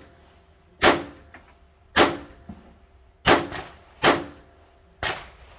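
Six pistol shots fired at a steady pace of about one a second, with two close together in the middle. Each is a sharp crack with a short echo off the wooden walls around it.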